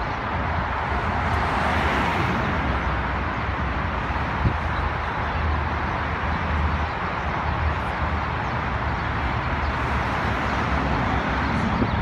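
Steady rush of road and engine noise from a moving vehicle, with a low hum underneath and a single light knock about four and a half seconds in.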